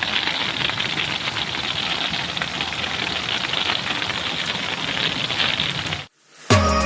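Heavy rain with strong wind: a steady, dense hiss full of small patter ticks. It cuts off suddenly about six seconds in, and music starts just before the end.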